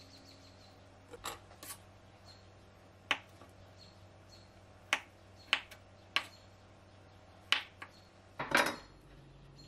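Chef's knife cutting soft avocado slices on a bamboo cutting board: a series of sharp knocks as the blade meets the wood, spaced irregularly about a second apart, with a longer, louder cluster of knocks near the end.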